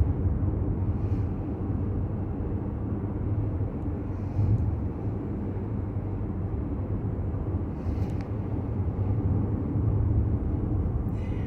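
Car driving slowly along a road: a steady low rumble of engine and tyre noise.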